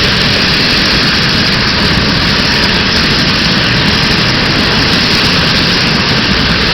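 Corona Express model train running on its track, heard through the track camera car riding in the train: a loud, steady rumble of motor and wheels on rails.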